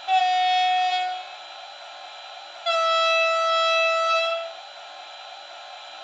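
Digital sound decoder in a Jagerndorfer model Taurus electric locomotive playing its loco horn through the model's small speaker: a short higher-pitched blast, then a second and a half later a longer, lower blast, over a steady hiss.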